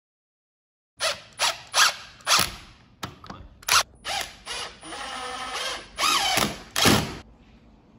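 Cordless drill/driver running in short trigger bursts, then a longer run of about a second with the motor pitch wavering, and two more bursts, driving screws to fix a blind mounting bracket into the window frame.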